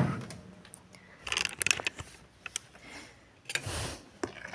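Light clicks and clatter of a cooking dish and its lid being handled, a burst of sharp clicks about a second and a half in, and a soft rustle near the end.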